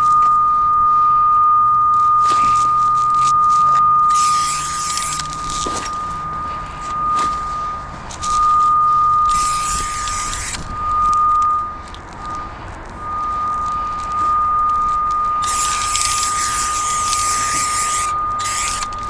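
A cable locator receiver sounds a steady high tone as it picks up the signal on a buried power cable. The tone fades and breaks up briefly near the middle, then comes back strong, following the strength of the signal. Three bursts of rushing hiss come and go over it.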